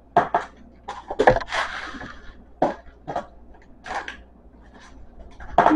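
Packaged food being moved about and set down on wooden cupboard shelves: a series of short knocks and clunks, the loudest about a second in, with a brief rustle just after it.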